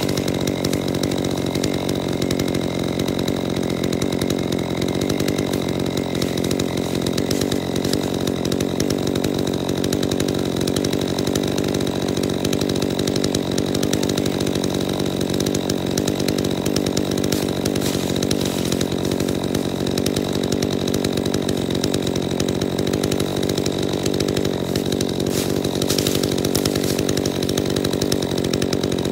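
Gas chainsaw idling steadily on the ground at a constant low engine speed, not revved or cutting.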